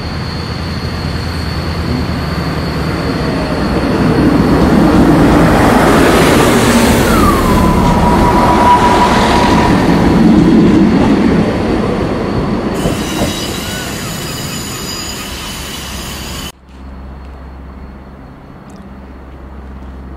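Diesel multiple unit running along the platform, growing louder as it passes close. Midway, a squeal slides down in pitch and holds steady for a few seconds. The sound then fades, and about 16 seconds in it cuts abruptly to quieter, distant rail noise.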